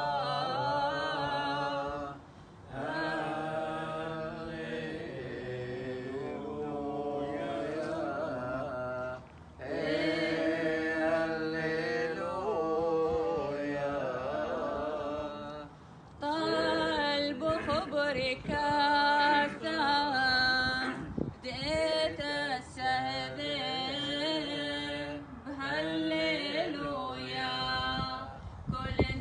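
Unaccompanied Chaldean Catholic liturgical chant, sung in long, drawn-out phrases with brief pauses for breath between them.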